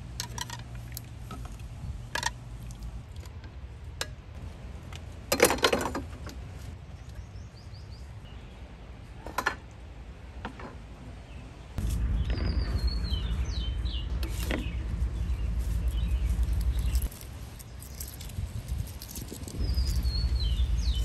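Birds chirping now and then against a few sharp knocks and clatters, one longer rattle among them. A low steady rumble comes in about halfway through, breaks off, and returns near the end.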